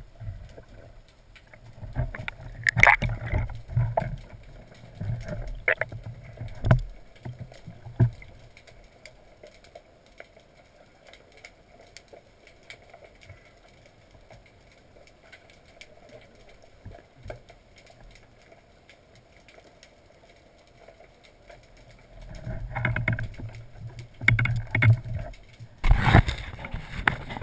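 Muffled underwater sound heard through a camera's waterproof housing as a speargun and a speared sea bass are handled: clusters of sharp knocks and low thumps in the first several seconds, a quieter stretch in the middle, then louder rushing water and knocking near the end.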